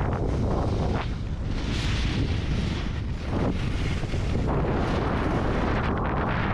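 Heavy wind buffeting on the microphone of a skier's action camera at about 50 km/h, with the skis hissing and scraping over packed, tracked snow in surges.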